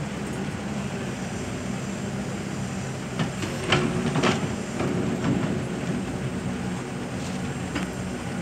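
Hyundai crawler excavator's diesel engine running steadily, puffing black smoke under hydraulic load as the boom swings and the bucket drops into the pit. A few sharp clanks come a little past the middle.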